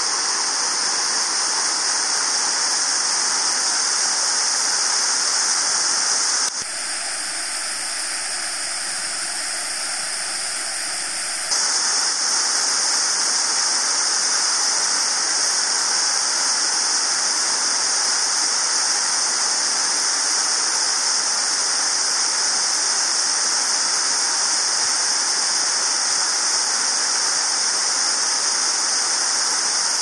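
Steady rush of a waterfall pouring into its plunge pool, dipping slightly quieter for about five seconds a few seconds in.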